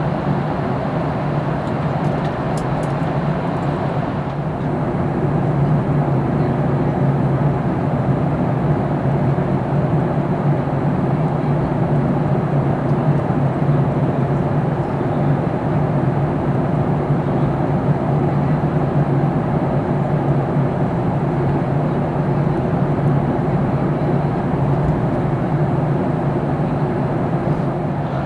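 Steady cabin noise of a Boeing 737-800 in flight: engine and airflow drone with a low hum, heard inside the cabin. It gets a little louder after about four seconds.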